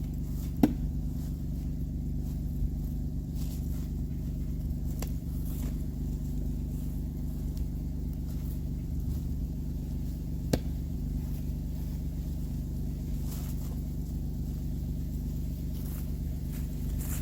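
Utility vehicle's engine running steadily with a low hum, with two sharp clicks, one about a second in and one about ten seconds in.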